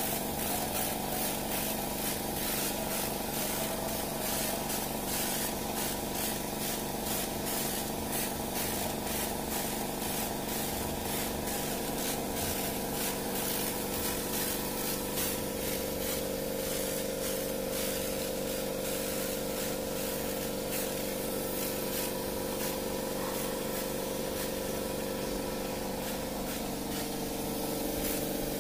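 Hiss of an air-powered hopper spray gun spraying caldera texture paint, over the steady run of an air compressor with a fast, even pulse.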